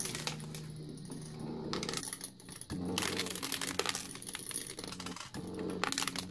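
Pennies clinking and sliding against each other as the stepper-driven pusher of a small wooden coin pusher shoves them along the tray, over a steady low hum from the stepper motor that drops out briefly twice.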